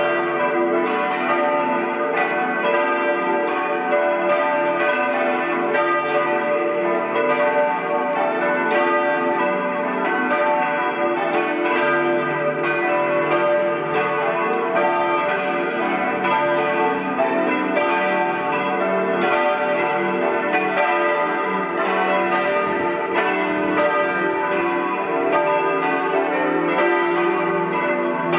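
Partial peal of four church bells ringing together for a service, their strokes overlapping in a steady, irregular stream. The bells are tuned D, E, F-sharp and B, cast in 1922 by Colbacchini of Trento and Cavadini of Verona.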